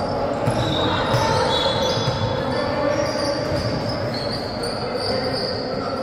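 Indoor basketball game play: the ball bouncing on the court and sneakers squeaking in short high chirps, over the steady noise of a large gym hall.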